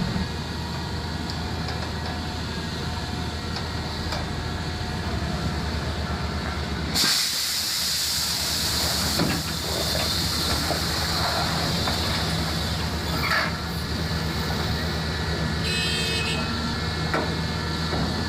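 A heavy vehicle's engine running steadily. About seven seconds in, a loud steady hiss starts suddenly and continues over it.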